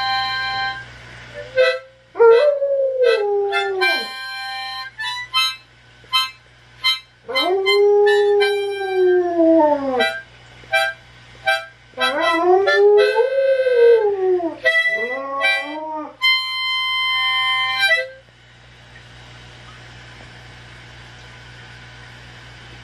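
Harmonica playing short chords while an Alaskan malamute howls along in several long howls that rise and fall in pitch. Both stop a few seconds before the end.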